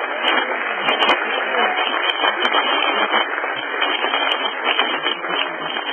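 A large congregation cheering and clapping in a big hall, a sustained crowd roar with hand claps.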